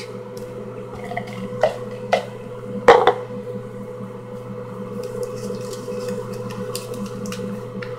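Hands drawing and unfolding a small folded paper slip: a few light clicks and taps with a sharper knock about three seconds in, then faint crinkling ticks as the paper is opened. A steady low hum runs underneath.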